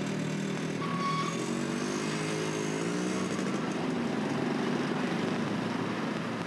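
Street traffic dominated by small motorcycle engines running close by, their pitch rising and falling as they pass between about one and three seconds in, with a short high beep about a second in.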